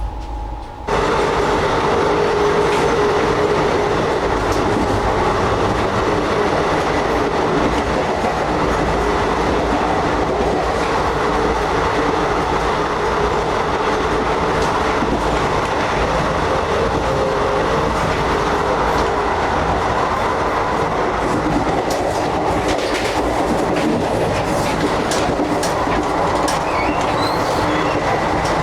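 Running passenger train heard from inside an air-conditioned Indian Railways coach: a steady rumble and hiss with a few faint held tones, getting louder about a second in, and scattered wheel clicks in the second half.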